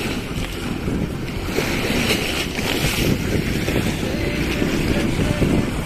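Small waves washing up a sloping concrete ramp, the wash swelling a couple of times, under steady wind rumble on the microphone.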